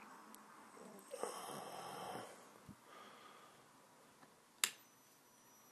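Rustle and scrape of the lamp being handled and set down, then one sharp click as the joule thief lamp is switched on, followed at once by a faint, steady high-pitched whine in two tones from the joule thief's oscillator circuit.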